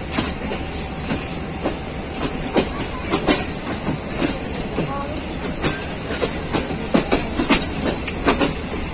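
Passenger train running along the track: a steady low rumble with irregular clicks and knocks from the wheels and the coach.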